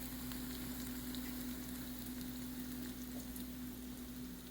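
Egg-soaked slices of French toast frying in a pan: a steady sizzle with scattered small pops, over a steady low hum.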